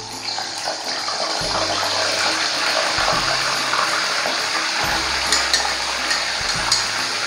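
Fish frying in hot oil in a wok: a steady sizzle that swells within the first second as the pieces go in, with a few light clicks later on.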